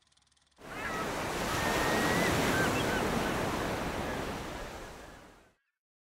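Ocean surf: a wash of breaking waves that swells in about half a second in and fades away over the last few seconds, with a few faint high chirping calls over it early on.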